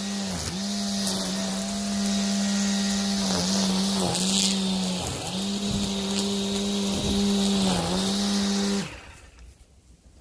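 Battery-powered lawn tool's electric motor running at a steady high pitch over a hiss of cutting, sagging briefly in pitch about four times as it bogs under load and recovering each time. It then cuts off suddenly near the end.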